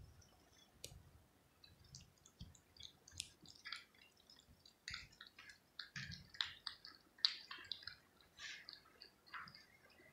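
Cat eating small food pieces off a plastic plate: a faint, irregular run of wet clicks and smacks from chewing and licking, coming thicker from about two seconds in.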